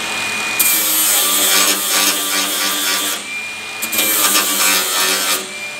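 Cordless angle grinder grinding down welded patches on sheet-metal bodywork. The spinning disc whines on its own, bites the metal with a loud grinding noise about half a second in, lifts off briefly in the middle, then grinds again and lifts off near the end.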